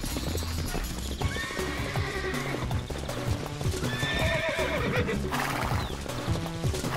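Wild brumby horses whinnying twice, about a second in and again around four seconds in, over galloping hoofbeats, with background music underneath.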